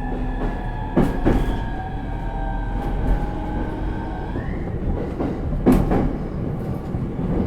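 JR East E231 series suburban electric train running, heard from inside the car: a steady rumble with thin high tones from the Hitachi IGBT inverter drive drifting slowly down, then briefly rising about four seconds in. The wheels clack over rail joints in pairs, once about a second in and again near the end.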